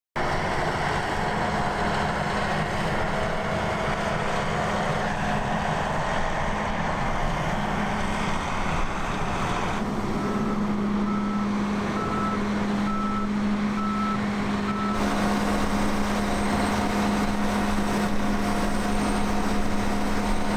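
Large farm machinery engine running steadily with a constant low hum. Midway, a backup alarm sounds a string of short, evenly spaced beeps for about five seconds.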